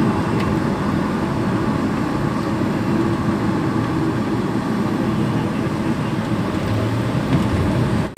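Steady road noise of a moving vehicle: a constant low rumble of engine and tyres, cutting off suddenly just before the end.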